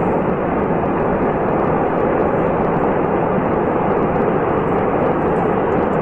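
A landslide: rock and earth collapsing down a mountainside in a steady, loud rumbling rush that does not let up.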